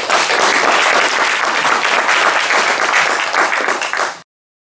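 Audience applauding. The applause cuts off abruptly into total silence a little after four seconds in.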